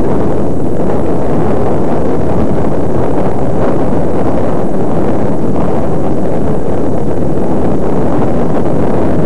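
Loud, steady wind rumble on the microphone of a camera riding on a moving bicycle.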